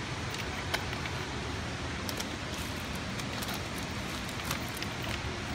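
Steady rushing noise, with a few faint light clicks as a carp is handled in a metal-framed landing net.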